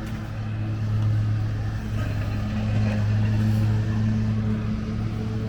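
A motor vehicle's engine running steadily, a low hum that grows a little louder about two seconds in.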